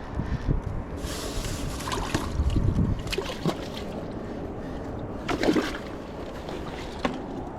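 Wind buffeting the microphone beside open water, a steady rumble, with a few scattered clicks and knocks and a louder burst a little past halfway.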